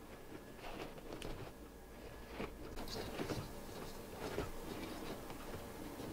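Faint rustling and crinkling of a pleated RV blind's folds being handled as nylon string is threaded through them, with a few light clicks scattered through, busiest in the middle.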